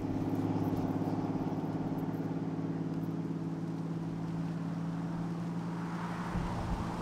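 A vehicle engine running at a steady speed, one unchanging drone; near the end low thumps come in under it.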